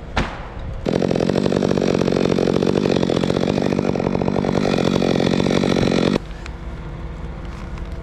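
A chainsaw running at full throttle, cutting through the fir's trunk, after a brief sharp click. It holds a steady pitch for about five seconds, then cuts off abruptly.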